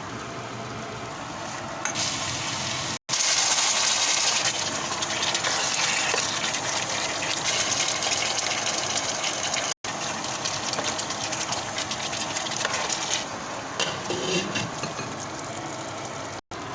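Biryani cooking in a pot: a steady hiss, loudest in the middle clip, broken by three abrupt cuts between clips.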